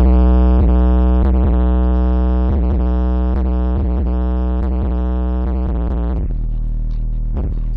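Bass-heavy electronic music played loud through a Philips FWM6500 mini hi-fi's woofer, picked up close to the cone. A held synth note rides over deep steady bass, then cuts out about six seconds in, leaving the bass and beat.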